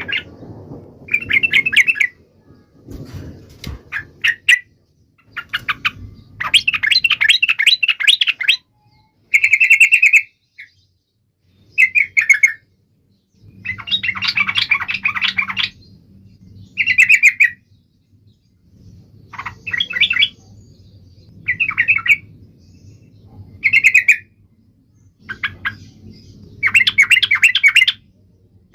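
Yellow-vented bulbul (trucukan) singing: repeated bursts of fast, chattering notes, each lasting a second or two, with short pauses between.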